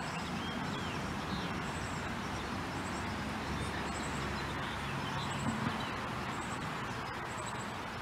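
Birds calling faintly: short high chirps repeating about once a second, with a few brief whistled notes, over a steady background rumble like distant traffic.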